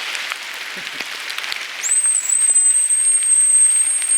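Rain falling steadily, then about two seconds in a dog whistle is blown: one long, high, steady whistle tone that starts with a quick upward slide.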